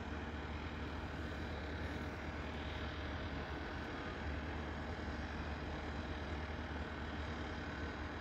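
Steady low engine rumble with a hiss over it and a few faint steady whining tones, unchanging throughout.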